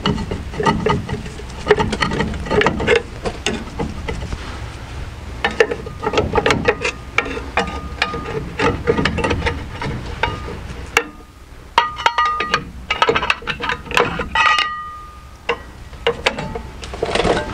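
Rusty rear brake drum on a Chevy K1500 being rocked by hand and pried with a steel pry bar: irregular metal knocks, clanks and scraping, with a few short squeaks in the second half. The drum is stuck over its self-adjusting shoes, which cannot be backed off from behind.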